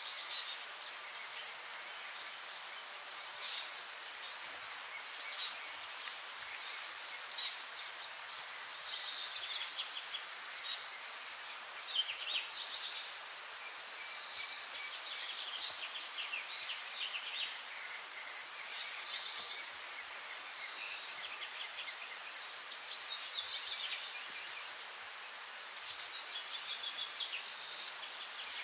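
Wild birds calling over a steady outdoor hiss: short, high, downward-slurred chirps every second or two, mixed with quick high trills.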